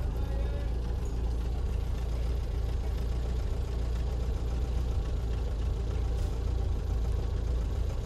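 NSU Kettenkrad half-track's Opel four-cylinder petrol engine idling steadily.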